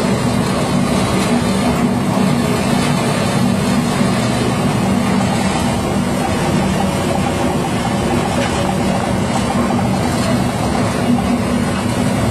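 Industrial paper shredder running under load, its rotor cutting paper as the shreds pour out of the cutting chamber. It makes a loud, steady mechanical drone with a continuous grinding noise.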